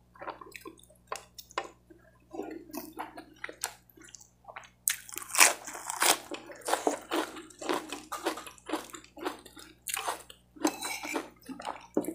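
Close-miked eating sounds: chewing fried rice and crunching raw lettuce leaves, with many short wet clicks and smacks of the mouth. A louder, wetter stretch of smacking comes about five seconds in.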